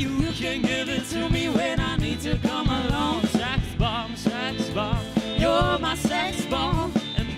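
Live pop band performing a song: singing with a wavering, ornamented melody over electric guitar, drum kit and keyboard.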